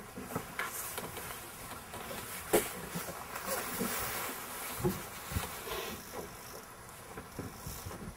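Small boat's motor droning steadily while the boat trolls with lines out, with a few sharp knocks about two and a half and five seconds in.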